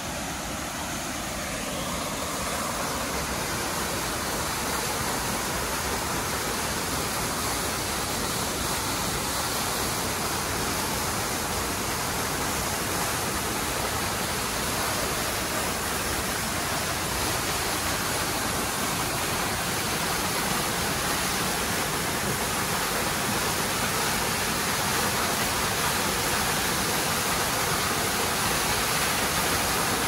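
Waterfall: the steady, even rush of falling water with no breaks, growing slightly louder about two seconds in.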